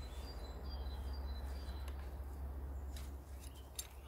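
Birds chirping faintly over a steady low rumble, with a few light clicks near the end.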